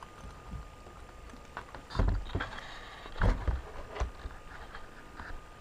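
Handling noise from a hand-held radio-control transmitter being moved into position: a few dull bumps and knocks, the loudest about two seconds in and just after three seconds, with a sharper click near four seconds. A faint steady high-pitched tone runs underneath.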